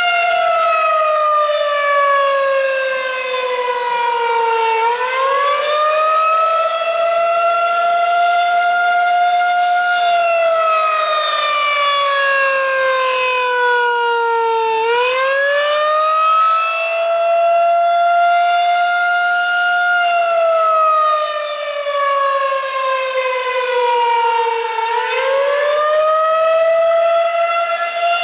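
Federal Signal 2001-SRN/DC battery-powered rotating warning siren sounding the Attack signal: its pitch rises quickly, holds near the top, then sinks slowly, repeating about every ten seconds. Three rises are heard. This is the weekly three-minute siren test.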